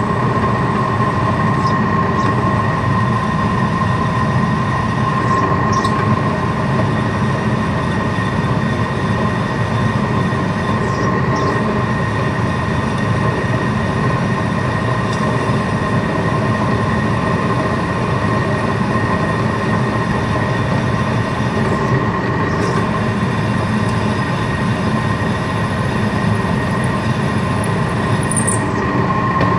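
Vertical milling machine running with a ball end mill cutting into a hardened broken rocker-cover bolt in a motorcycle cylinder head. It makes a steady high whine over a rumble.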